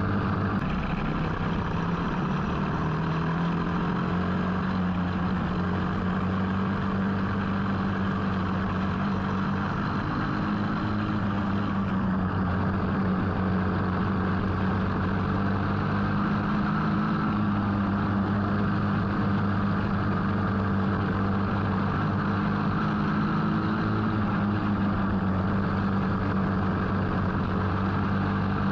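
Dirt-track racing go-kart's engine running hard, heard close from on board the kart, its pitch rising and falling slightly through the corners over a steady rush of noise.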